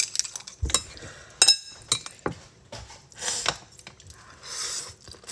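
Chopsticks clicking and clinking, with one ringing clink about a second and a half in, then noodles slurped in two short hissy sucks in the second half.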